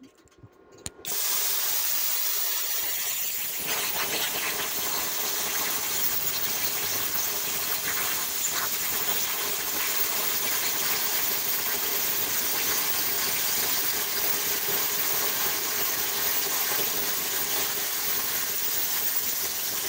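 Vevor Cut 50P plasma cutter cutting 3/8-inch steel angle at 40 amps. The torch's steady, loud hiss of compressed air and arc starts suddenly about a second in and runs on without a break.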